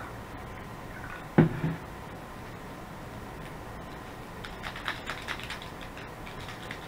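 Items being handled on a tabletop: one sharp thump about a second and a half in, like something set down, then a quick run of light clicks and crinkles around five seconds in.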